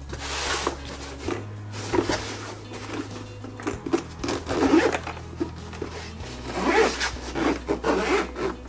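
Zipper and handling noise from the grey fabric-covered DJI Mavic Mini Fly More carrying case as it is slid across the desk mat and unzipped, in several short scrapes. Soft background music with a low bass line plays underneath.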